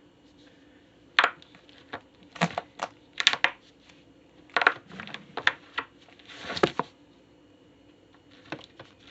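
Silicone pop-it fidget bubbles being pushed through, giving a string of short, irregular pops and clicks, with one longer crinkly crunch about six and a half seconds in.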